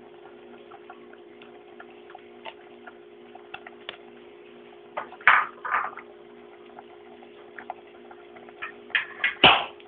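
Light clicks and taps of kitchen handling as ham slices are laid onto a crepe in a frying pan, with a few louder knocks of dishware about five seconds in and near the end, over a steady low hum.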